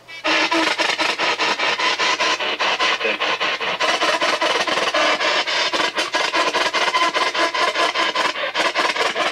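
P-SB7 spirit box sweeping the AM band: a loud, rapid, even chop of radio static and station fragments, many short cuts a second, after a brief gap at the start.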